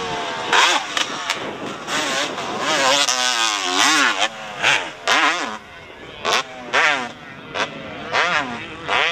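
Motocross dirt bike engine revving hard and then backing off, over and over, as the throttle is worked over the jumps. The pitch climbs and falls about once or twice a second.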